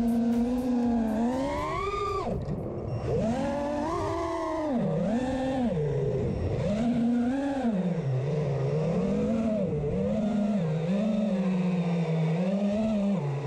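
5-inch FPV racing quadcopter's brushless motors and propellers whining. The pitch climbs and drops again and again as the throttle is punched and eased, highest about two seconds in, then rising and falling about once a second.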